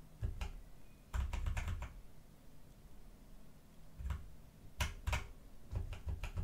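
Computer keyboard arrow keys pressed in several short runs of clicks, stepping an animation timeline frame by frame.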